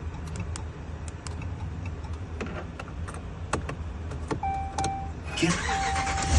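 Keys clicking and jingling in the cab of a 2020 Dodge Ram pickup. About four seconds in, a repeated electronic chime begins, then a rising burst of noise as the truck's engine is cranked, catching just at the end.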